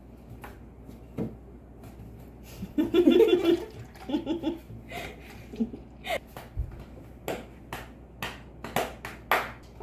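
Milk poured from a plastic bottle into a plastic cup, with a short laugh. In the second half comes a drum solo: a run of sharp knocks, about two a second, drummed by hand.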